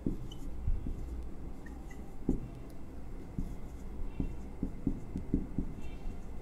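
A marker writing on a whiteboard: faint short taps and strokes as the words are written.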